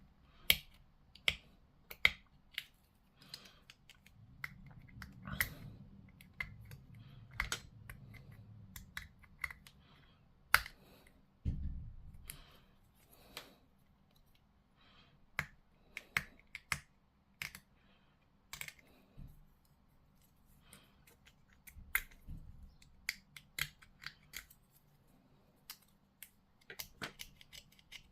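Plastic model-kit parts and hobby tools being handled at a workbench: irregular sharp clicks and snaps as parts are clipped, cleaned of mould lines and pushed together, with a dull thump about eleven seconds in.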